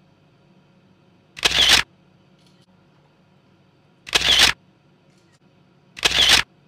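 Camera shutter sound, three times, about two seconds apart, as group photos are taken.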